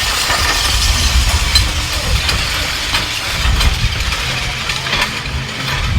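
Weighted push sled (prowler) being driven across pavement, its metal runners grinding and clattering along, under heavy wind rumble on the microphone.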